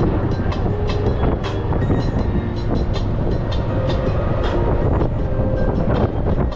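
Golf cart driving along a paved path: a steady rumble of motor and tyres, with frequent clicks and knocks from the cart's body and canopy frame rattling over the surface.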